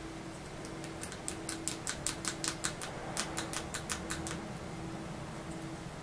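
Typing on a computer keyboard: a quick run of key clicks from about a second in until about four seconds in, then it stops. A steady faint hum sits underneath.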